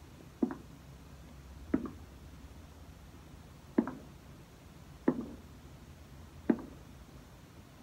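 Five short, sharp knocks, spaced unevenly about one to two seconds apart, over faint low background noise.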